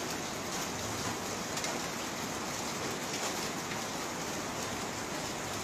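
Steady rain falling on a concrete rooftop: a dense even hiss dotted with many small drop ticks.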